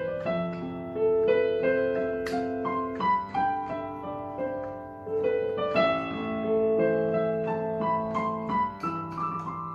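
Digital keyboard playing a piano sound: a slow melody over held chords.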